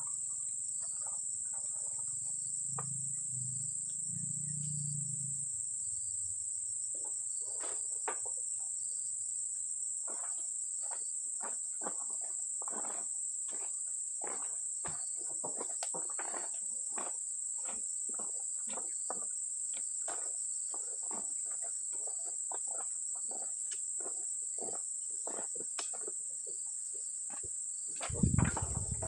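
Steady high-pitched insect drone, with many short knocks and thuds as oil palm fruit bunches are thrown onto a truck's load. A heavy thump comes near the end.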